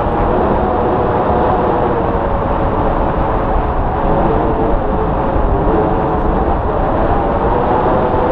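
Wind rushing over the microphone during a tandem paraglider flight. A loud, steady, rumbling noise with a faint wavering tone above it.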